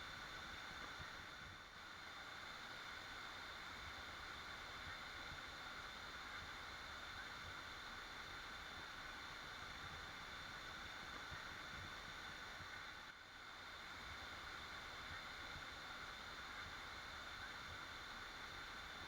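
Waterfall rushing steadily, a continuous even roar of falling water that dips briefly twice.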